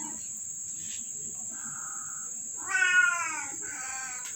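Cat meowing three times: a short, even meow about one and a half seconds in, then two meows near the end, the first of these the loudest, with its pitch falling.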